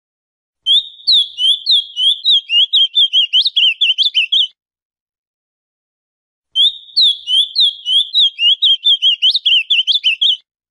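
Male ultramarine grosbeak (azulão) singing: two song phrases of about four seconds each, each a quick run of short sweeping notes, with dead silence between them.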